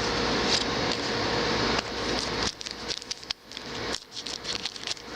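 Cardboard trading cards being handled and flipped through by hand. A steady hiss with a faint hum comes first, then irregular quick clicks and rustles of the cards sliding against each other from about halfway in.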